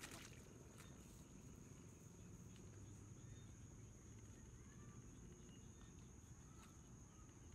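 Near silence, with a faint steady high-pitched trill of crickets and a few faint short chirps.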